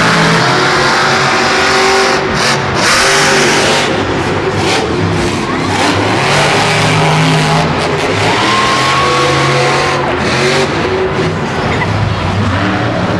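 Monster truck engines running loud, revving up and down as the trucks drive around a dirt arena; the pitch rises and falls repeatedly, with one higher rising whine about eight seconds in.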